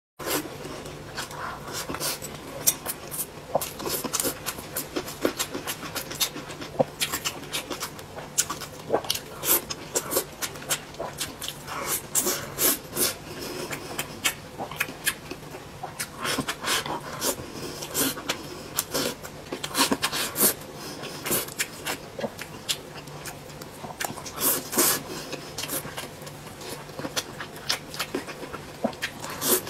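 Close-up eating sounds: a person chewing and smacking her lips on braised pork belly and rice, with a steady run of irregular wet clicks and smacks.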